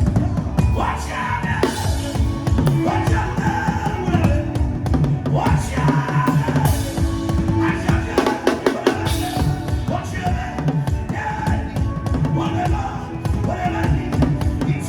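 Drum kit played in a dense, continuous beat of closely spaced strikes with bass drum, with a voice heard over the drumming.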